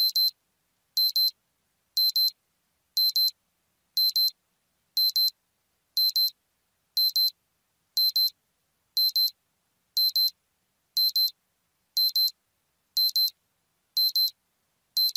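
Digital alarm beeping as a countdown timer reaches zero: a short high-pitched double beep about once a second, repeating evenly, signalling that the time is up.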